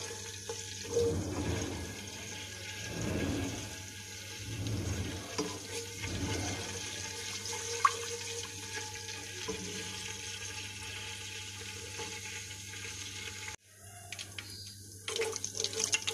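Fenugreek seeds sizzling and crackling in hot oil in a pan as they are stirred with a wooden spoon. The sound cuts out abruptly near the end and comes back with louder, sharper crackles.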